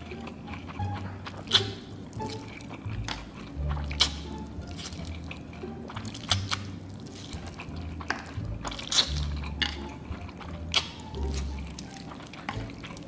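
Spicy instant fire noodles being slurped up from chopsticks in repeated wet slurps, over light background music.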